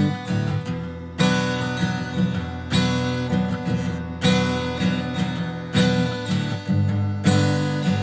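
Background music: strummed acoustic guitar chords in a slow, even rhythm.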